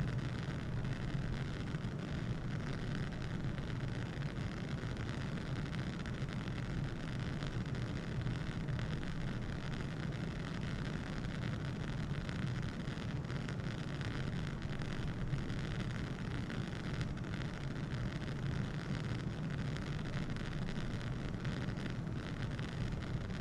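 Bunsen burner's blue gas flame burning with a steady low rush and hiss.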